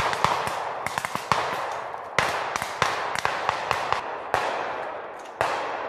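Rifle fire: many rapid, overlapping shots from several rifles, with a few louder cracks that echo away for a second or two.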